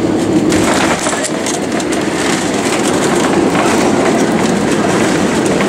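Jet airliner cabin noise: a loud, steady rumble of engines and airflow around the plane as it comes in to land.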